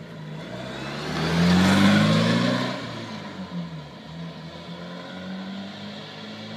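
Porsche 944 coupe driving past close by, its four-cylinder engine loudest about two seconds in, then pulling away up the road with the engine note rising and dropping.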